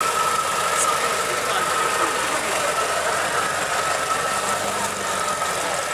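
Land Rover off-roader's engine running as it crawls slowly over rough grass, with a steady high whine throughout.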